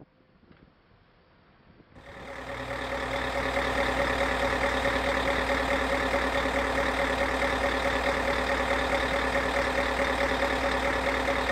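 Diesel engine of heavy construction machinery running steadily, with a constant hum. It comes in about two seconds in after a near-quiet start, swells over a couple of seconds and then holds.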